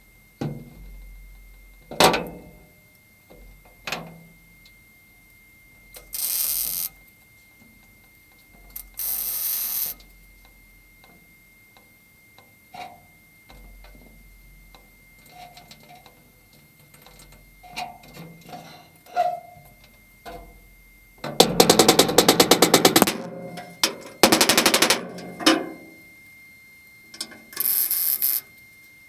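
Welder laying tack welds on thin car-body sheet steel: several short bursts of crackling arc, the two longest, about a second and a half each, in the second half, with a few sharp knocks between them.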